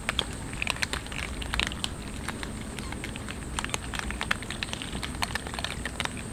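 A crowd of cats eating food together: a dense, irregular patter of chewing and lip-smacking clicks.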